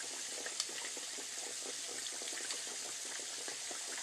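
Pork chops frying in hot oil in a pan: a steady sizzle full of small crackles, with one sharper pop about half a second in.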